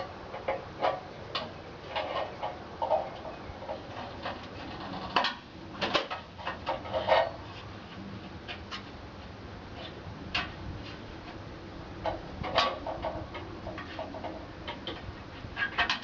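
Irregular light clicks, taps and short rattles, with a few louder clatters about five to seven seconds in and again near thirteen seconds, over a faint steady hum: hand work with small metal parts and tools, most likely on the NuTone 920 wall heater being fitted.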